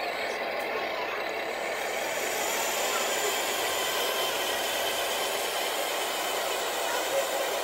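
Scale RC K-700 6x6 dump truck driving loaded with sand: a steady running noise from the model, a little louder in the middle as it passes close.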